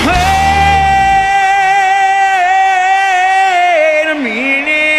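Live rock band with a male lead singer: the band's low end drops out about a second in, leaving the singer holding one long high note into the microphone. The note dips lower near the end and holds there.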